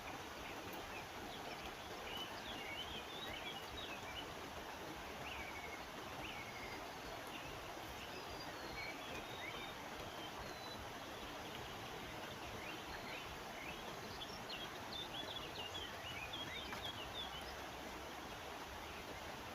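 Small birds chirping in scattered short bursts over a steady rush of river water.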